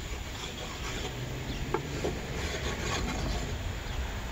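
Bench stone rubbed back and forth along a chainsaw bar's steel rails, a light scraping of stone on metal, with a few short sharp sounds in between. The stroke smooths off the burr left from filing the rails.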